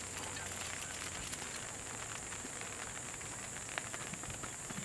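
Steady outdoor background hiss with a constant high-pitched whine over it and a couple of faint ticks; no distinct event.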